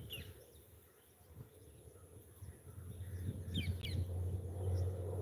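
Short bird chirps, one just after the start and a quick cluster about three and a half seconds in, over a steady low drone that grows louder through the second half.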